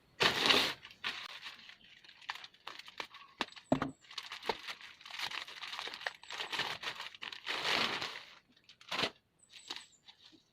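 Shipping package being torn open and crinkled by hand: a loud rip at the start, then irregular crinkling with sharp clicks and crackles, and another strong rustle about eight seconds in.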